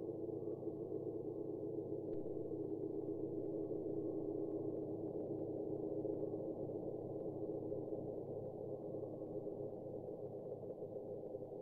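A steady electronic drone of many held low tones, nothing above about 1 kHz, easing slightly toward the end.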